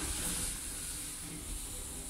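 Automatic sliding doors of a 1993 Schindler elevator closing: a steady hiss with a low rumble.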